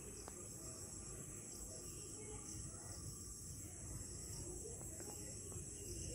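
Faint room tone: a steady high-pitched hiss with a low hum underneath and a couple of faint ticks.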